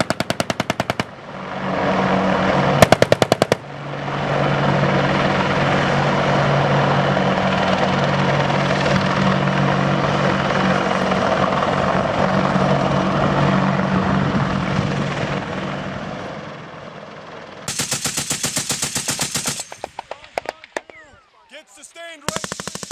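Short bursts of belt-fed machine-gun fire: one ending about a second in, another about three seconds in, a longer one about eighteen seconds in and one more at the very end. Between them, a steady engine drone runs through the long gap and fades out about sixteen seconds in.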